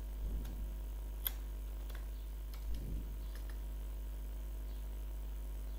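A handful of faint, irregular computer keyboard clicks as digits are typed into a form field, one sharper click about a second in, over a steady low electrical hum, with two soft low bumps near the start and just before the middle.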